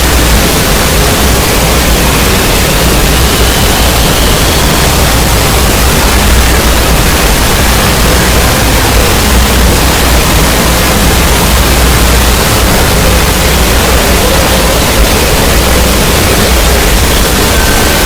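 Loud, steady hiss of static-like noise with a heavy low rumble, unchanging throughout; faint thin whistles show through it a few seconds in and again near the end.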